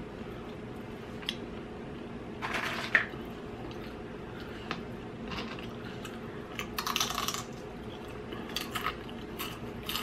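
Close-up eating sounds: chewing and mouth noises with scattered light clicks of cutlery on a plate, and two louder noisy bursts about two and a half and seven seconds in.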